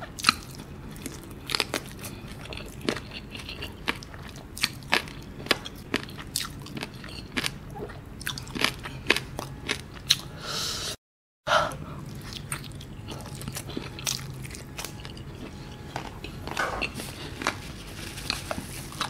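Close-up crunching and chewing of crispy fried chicken, many sharp crunches in an uneven run. The sound drops out completely for about half a second around eleven seconds in.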